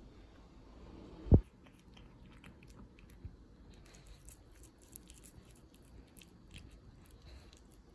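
A cat eating soft crumbled food out of a person's palm: many small chewing and licking clicks. One loud dull thump about a second in.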